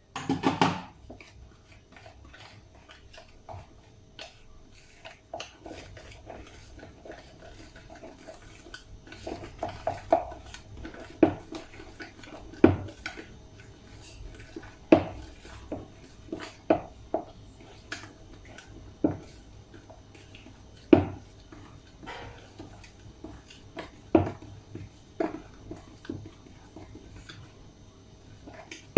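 A spoon or whisk knocking and scraping against a mixing bowl as flour is mixed by hand into cake batter, with irregular clacks every second or two.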